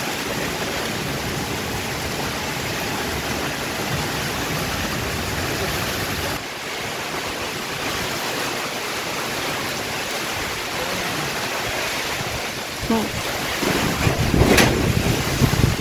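Steady, dense hiss of heavy rain and wind in the trees. In the last few seconds, strong gusts buffet the microphone with a loud, uneven low rumble.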